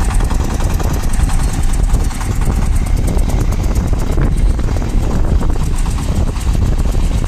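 Shifeng SF-240 minitractor's single-cylinder diesel running steadily under load while driving a rotary tiller through the soil.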